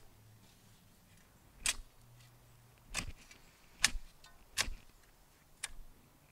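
Narrow steel spade chopping down into soil, about six sharp strikes roughly a second apart at an uneven pace.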